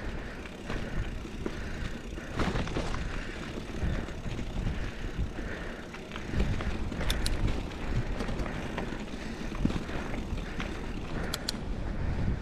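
Scott Spark 950 mountain bike rolling down a rocky dirt trail: its Maxxis Dissector tires crunching over dirt and the bike rattling, over a steady rumble of wind on the camera microphone. A couple of sharp clicks come in the second half.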